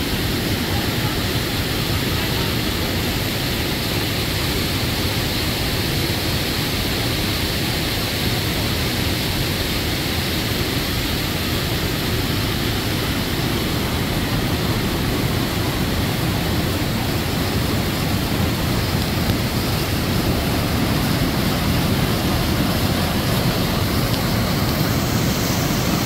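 Steady rushing of river white water pouring over rapids and a wide, low waterfall.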